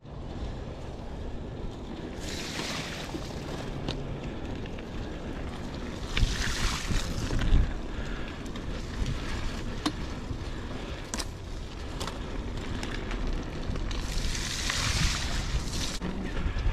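Wind buffeting the microphone over a steady low rumble as a Huffy Good Vibrations klunker bicycle rolls down a wet dirt trail. There are three louder stretches of tyre hiss, and scattered clicks and knocks come from the bike jolting over bumps.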